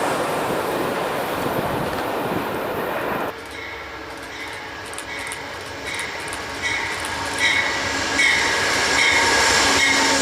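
Train rolling past on the rails, a loud, even noise. About three seconds in it drops off abruptly, and a high-pitched tone repeats about twice a second, getting louder.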